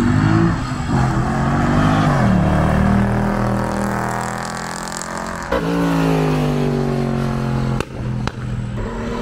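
A high-performance car engine revving: its note rises and falls, jumps up sharply about halfway in, then sinks slowly. Two short clicks come near the end.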